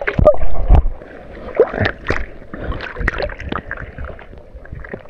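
Close-up water splashing and sloshing as hands shake a gill net and free a small fish in the river, loudest in the first second, then irregular small splashes and drips.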